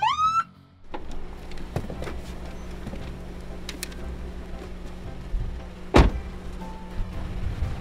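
A police car's siren gives one last short rising whoop and cuts off. A car engine then runs with a low steady hum, and about six seconds in a car door shuts with a single sharp slam.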